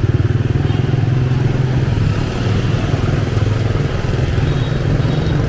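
Motorbike traffic passing close by, with a steady, loud, low engine rumble.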